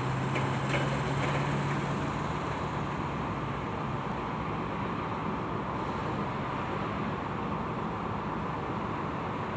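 Steady outdoor rumble of distant engines, with a low engine hum that fades away over the first two or three seconds.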